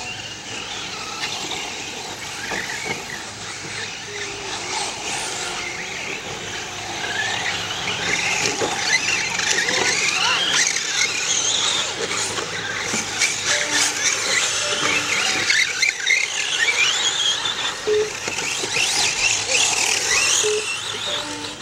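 Radio-controlled race cars' motors whining as they race past, the high pitch rising and falling many times as they accelerate and slow, with a few short beeps near the end.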